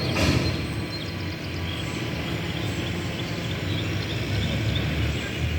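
Steady low rumble of a distant vehicle, with a brief rushing burst right at the start; no horn sounds.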